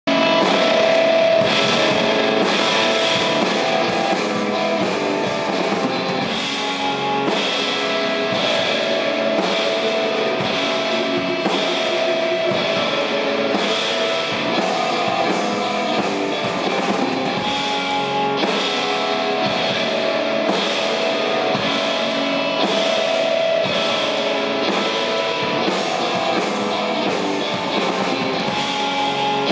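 Live instrumental rock from a drum kit and an electric guitar: a dense, loud wash of long held guitar notes over busy drumming.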